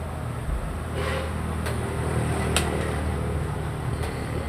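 A steady low hum or rumble with three short, sharp clicks partway through.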